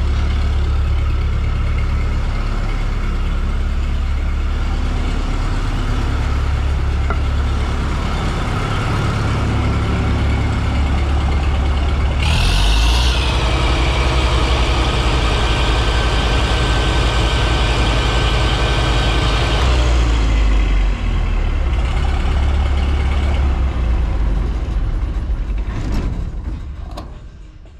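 Massey Ferguson 86 combine harvester's diesel engine running with a steady deep hum. About twelve seconds in, a hissing, higher whine joins for some eight seconds. Near the end the engine is shut off and runs down, followed by a few clicks.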